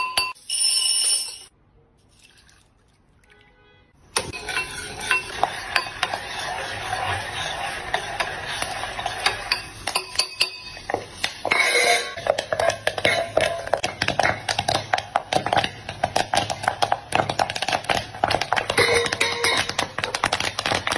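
Popcorn kernels sizzling and popping in hot oil and syrup inside a lidded pot: a dense, irregular crackle of sharp clicks that starts about four seconds in and grows busier partway through.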